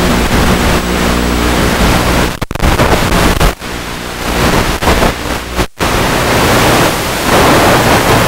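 Electric pusher motor of a Multiplex EasyStar 2 model plane running with a steady hum under rushing air noise on its onboard microphone. The motor tone stops a little over two seconds in as the plane glides down to land, leaving a loud even rushing hiss broken by a few short dropouts.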